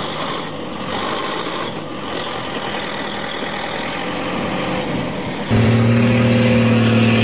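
Tractor engine running with a rough, noisy mechanical rumble. About five and a half seconds in, a sudden cut brings in a louder engine holding a steady drone, its pitch wavering slightly.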